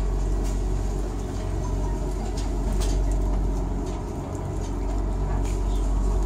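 Inside a passenger train coach as the train moves off slowly: a steady low hum and rumble, with a few faint clicks and rattles.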